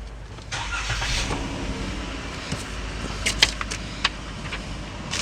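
A 3.6-litre Pentastar V6 starting about half a second in: a short crank, then the engine catches and settles into a steady idle. A few sharp clicks stand out about three and a half seconds in, with one more about a second later.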